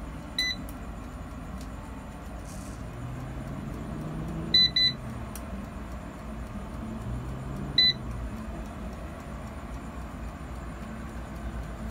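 Digital air fryer oven's touch control panel beeping: one beep, then a quick double beep a few seconds later, then another single beep. Under the beeps is a steady low hum from the fryers running.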